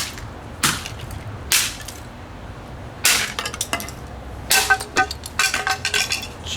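A cheap plastic clock radio being smashed: a string of sharp hits, each with a crack and clink of plastic breaking, then a quick run of clattering pieces near the end.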